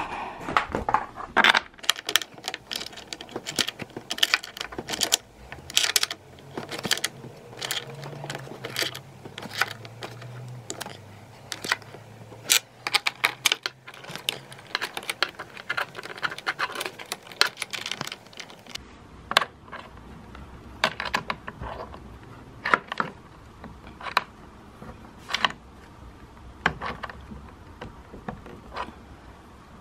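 Irregular sharp clicks and knocks of the sofa's wooden frame and metal springs being handled during assembly, coming thick and fast at first and more spaced out after about two-thirds of the way through.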